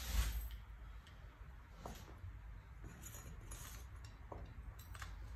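A dull thump at the start, then a few scattered light taps and clicks of a cleaver and hands on a wooden chopping board as a bunch of green onions is gathered and cut.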